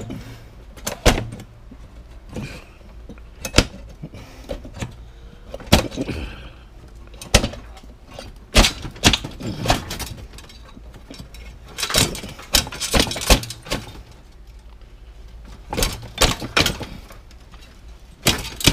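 Irregular metallic knocks, clanks and rattles from the sheet-metal cooktop and burner pans of an electric stove as its wiring is pulled and tugged free by hand. They come in small clusters every few seconds, busiest in the middle.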